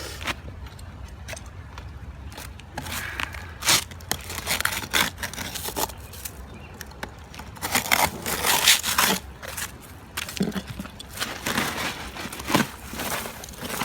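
Old roof shingles being pried up and torn off: irregular scraping, crackling and tearing strokes, busiest about two thirds of the way through.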